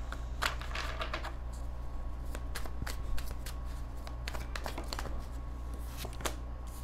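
Tarot cards being handled and shuffled by hand: irregular soft flicks and taps of card stock. A steady low hum runs underneath.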